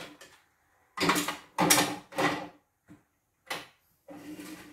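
White plastic parts of an embroidery machine being handled, slid and knocked against each other on a wooden workbench, in about five short scraping bursts.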